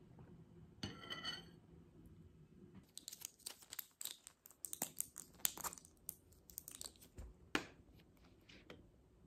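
A spoon clinks and rings against a ceramic soup bowl about a second in. Then a medicine blister pack is handled, its foil and plastic crinkling and crackling in quick sharp pops for several seconds as pills are pressed out, with one sharp crack near the end.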